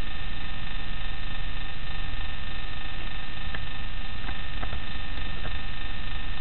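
Steady electrical hum and hiss, with several steady tones layered over it, and a few faint ticks around the middle.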